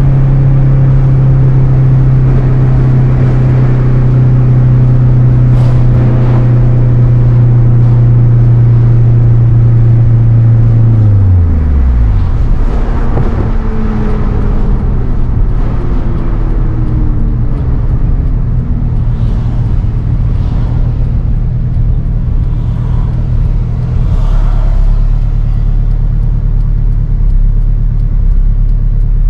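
Turbocharged Honda K20 inline-four of an Acura RSX Type-S running on the road. It holds a steady note for about ten seconds, then its pitch drops sharply as the revs fall off, and it carries on with lower, sliding engine tones.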